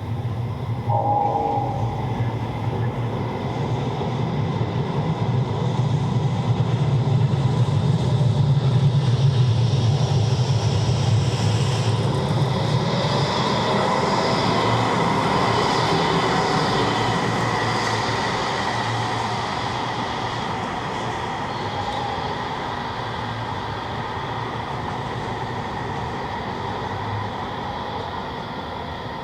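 Tram moving on rails: a low rumble that builds for the first several seconds and then fades slowly, with a steady electric whine and a faint gliding squeal in the middle. A short pitched tone sounds about a second in.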